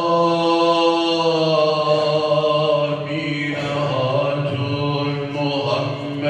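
Solo male voice chanting a Turkish ilahi, a devotional hymn, into a microphone. It holds one long note for about three and a half seconds, then moves on to new pitches, over a low steady drone.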